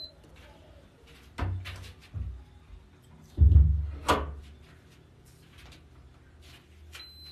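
A few dull knocks and thumps, the loudest about three and a half seconds in, followed by a short high beep near the end.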